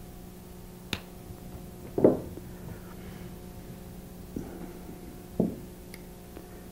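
Flush cutters snipping through jewelry wire with one sharp click about a second in, followed by two duller knocks about two and five seconds in, over a steady electrical hum.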